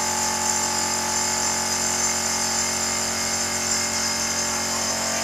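Air spray gun hissing steadily as it sprays paint, over the steady motor hum of a small portable air compressor.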